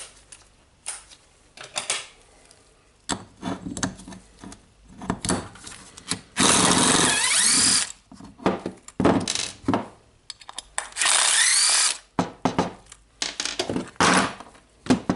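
Cordless drill/driver backing out screws from a hammer drill's metal housing plate: two short runs of the motor, the first about a second and a half and the second about a second, each with a rising whine as it spins up. Short clicks and knocks of parts being handled come between them.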